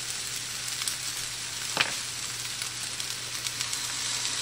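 Fried rice with vegetables and egg sizzling steadily in a pan on high heat, with a single sharp click a little under two seconds in.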